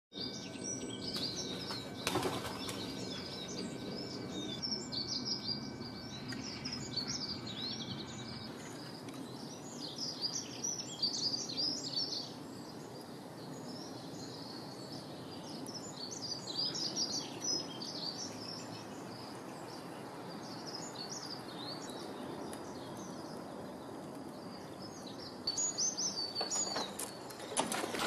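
Small birds chirping, many short high calls coming and going throughout, over a steady outdoor background hiss.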